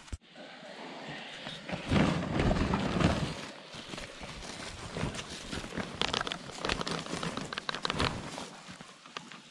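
Rustling and handling noise of a fabric backpack being opened and rummaged through by hand, in irregular bursts with clusters of small clicks and scrapes.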